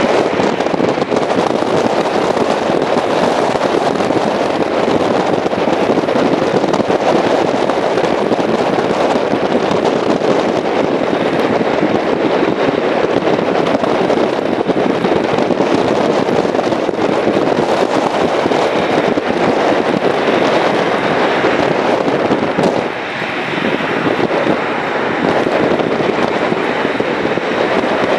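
Strong wind buffeting the microphone, a loud, steady, crackling rush that eases for a moment about three-quarters of the way through.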